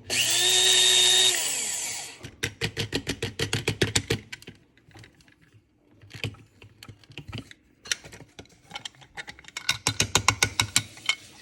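Krups One-Touch blade coffee grinder's motor whirring in one short press, then winding down about two seconds in as the blades coast to a stop. After it come two runs of quick light clicking and tapping, with a quieter gap between.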